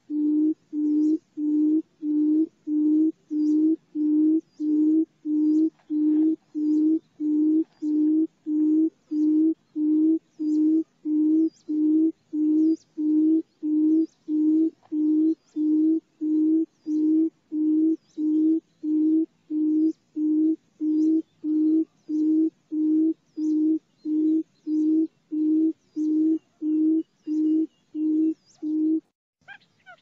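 Barred buttonquail's booming call: an unbroken, even series of low hoots, about one and a half a second, which stops about a second before the end.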